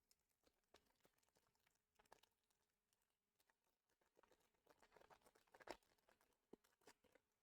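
Near silence, with faint scattered clicks and soft rustling from trading cards being handled and slid through the hands, a little busier about two-thirds of the way through.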